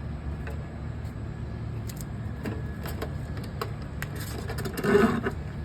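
Steady low mechanical hum with scattered light clicks and rattles, and a louder knock about five seconds in.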